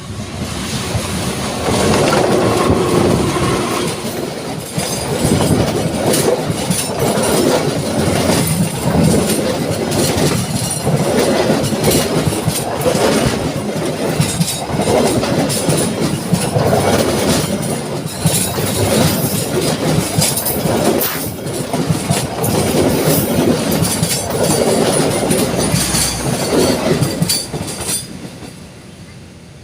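A train passing close by, its wheels clattering over rail joints and turnout points in a long run of sharp clicks over a steady rumble. The sound falls away near the end as the train passes.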